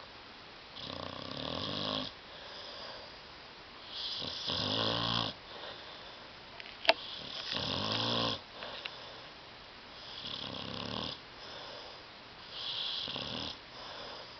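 A sleeping dog snoring: a loud, buzzy snore about every three seconds with a softer breath between. The last two snores are weaker. A single sharp click sounds about halfway through.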